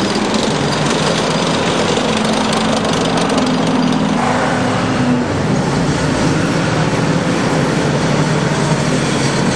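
WWII-era tracked light tank driving past at close range, its engine running steadily under the clatter of its tracks; a half-track comes along behind it near the end.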